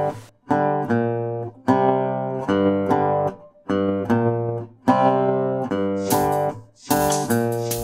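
Background music: acoustic guitar strumming chords, each chord struck and left to ring, about one a second.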